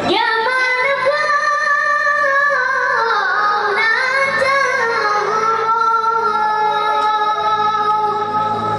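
A munshid singing an Arabic mawwal: a solo vocal improvisation of long, ornamented notes whose pitch winds up and down, settling into a long held note near the end.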